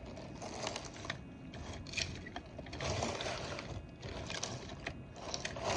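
Metal bridal kaleeras, with gold-tone domes, chains, pearl beads and butterfly charms, jingling and clicking as they are handled and turned, in irregular small clicks over a light rustle.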